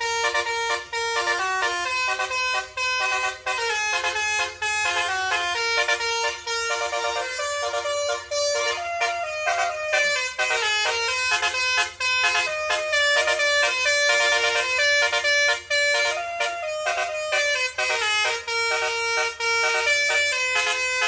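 Nine-note telolet horn playing a fast melody of short, stepped horn notes with a few longer held low notes.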